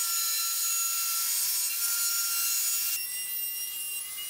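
Hand-held electric router running at high speed, its bit routing a tenon in hard reclaimed Australian hardwood: a steady high-pitched motor whine over the hiss of cutting. About three seconds in the sound changes abruptly to a quieter, steadier whine.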